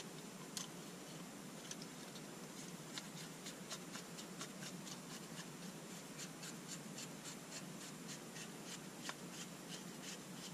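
Screwdriver turning the pistol-grip screw into an AR-15 lower receiver, making a faint, steady run of small, evenly spaced ticks, about two or three a second.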